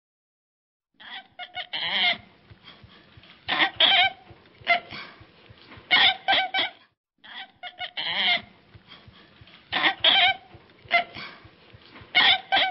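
Orangutan calls: clusters of short, loud, pitched calls about every two seconds. They start about a second in, and the sequence repeats once after a brief gap midway.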